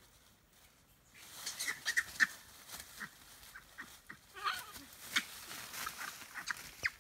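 Celebes crested macaques calling: a string of short squeaky chirps and honk-like calls starting about a second in, with crackles of dry leaf litter under their feet.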